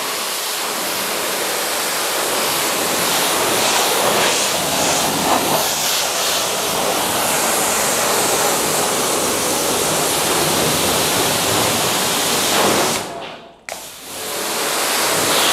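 Pressure-washer jet hissing steadily as it sprays onto a car's hood. It cuts out briefly about thirteen seconds in, then starts again.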